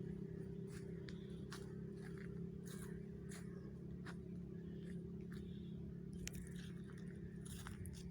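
Footsteps crunching through dry leaves and twigs, about two steps a second, over a steady low hum.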